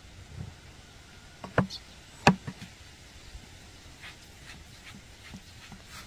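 Metal dough scraper knocking on a wooden board while dough is cut into pieces: two sharp knocks about a second and a half and two seconds in, the second the loudest, followed by a few lighter taps.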